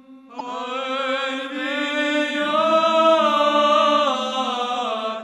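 Background music of a monastery choir chanting: slowly moving sung notes held over a steady low drone. It comes in just after the start and fades out at the end.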